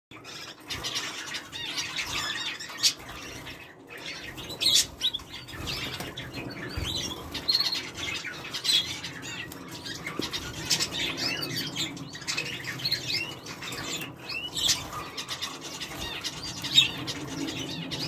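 Small aviary birds, canaries and zebra finches, chirping and calling continuously in many short, high overlapping notes, with a few sharp louder clicks or flutters.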